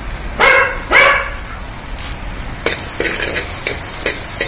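A dog barks twice in quick succession in the first second or so. From about two seconds in, shallots sizzle in hot oil in a clay pot, with a steel spoon stirring and scraping against the pot in quick clicks.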